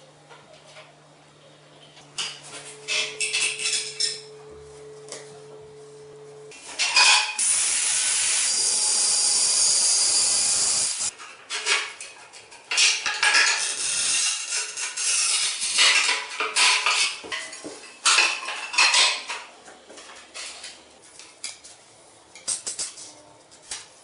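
Ceramic floor tile being measured and cut on a manual rail tile cutter: clinks and scrapes of tile against metal tools, with a steady scratching rasp for about four seconds near the middle as the cutter's scoring wheel runs across the glaze.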